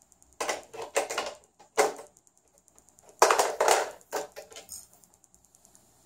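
Plastic shape blocks clattering against a plastic shape-sorter bucket and dropping into it, in a few short bursts of rattling with pauses between.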